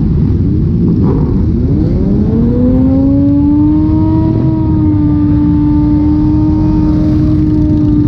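A mass of motorcycles riding together, engines rumbling loudly. About two seconds in, one engine revs up and is held at high revs for several seconds.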